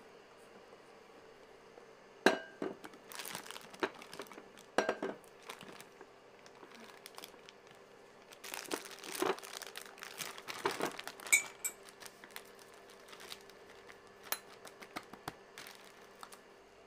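Plastic piping bag crinkling and rustling as thick meringue is scooped into it, in two spells, with a few sharp clinks that ring briefly, like a utensil against a stainless steel mixing bowl. A faint steady hum sits underneath.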